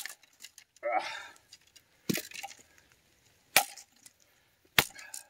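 A Cold Steel Jimislash competition chopper, a heavy chopping knife, chopping into a branch of hard post oak resting on a log, four sharp chops one to two seconds apart.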